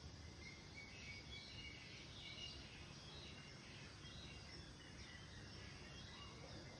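Quiet open-air ambience with a steady low rumble, and small birds chirping faintly in short high notes, mostly in the first half.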